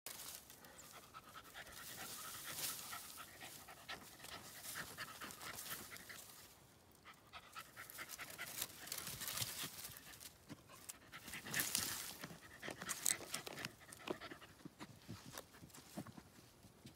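Border terrier panting and sniffing with its nose in a hole under tree roots, with scratching and snapping of shredded bark and wood as it digs and tears at the roots after a hidden animal.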